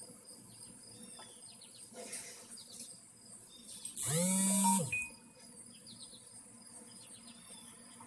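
Steady insect chirring with scattered bird chirps. About four seconds in, one loud pitched call, rising and falling, lasts just under a second.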